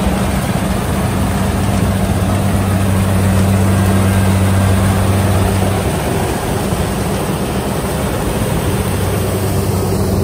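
Kubota rice combine harvester working in the field: its engine hums steadily under a dense rushing noise from the machine threshing and blowing out chopped straw. The engine tone fades somewhat into the noise about six seconds in, as the harvester turns past.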